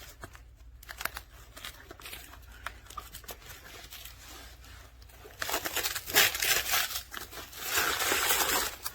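Fabric of a weighted vest rustling and scraping as a weight plate is slid into its pocket. Light scattered clicks of handling come first, then a louder run of rustling over the last three or four seconds.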